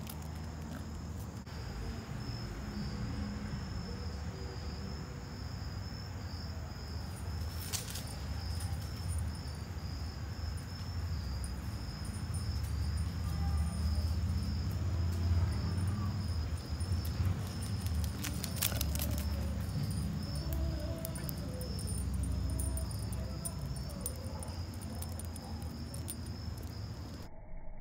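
Crickets chirring steadily in one high, unbroken tone, over a low rumbling noise that swells in the middle, with a few sharp clicks.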